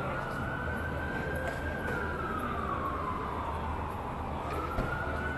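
Emergency vehicle siren in a slow wail: the pitch holds high, falls gradually over a few seconds, then climbs again near the end, over a low steady traffic hum.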